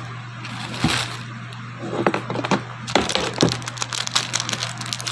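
Clear plastic mask parts and packaging being handled: scattered clicks and crackles, turning into dense crinkling about three seconds in, over a steady low hum.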